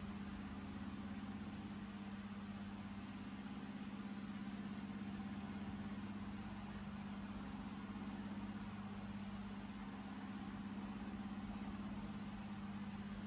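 A steady low hum over a soft even hiss, unchanging throughout, like a motor or appliance running in the room.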